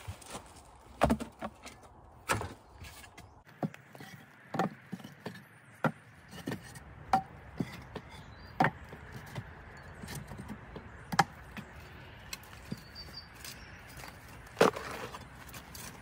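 Irregular knocks and clunks of wood and garden tools being handled at a wooden slatted compost bay, with a few louder thuds standing out, one about a second in and one near the end.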